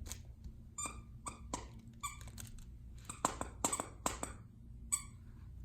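Squeaky snowman dog toy squeaked about ten times in short, irregular squeaks as a Shih Tzu bites it, bunched most closely together past the middle.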